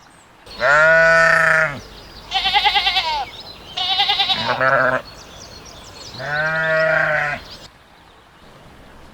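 Sheep bleating: four separate baas, two long deeper ones and two higher, quavering ones between them.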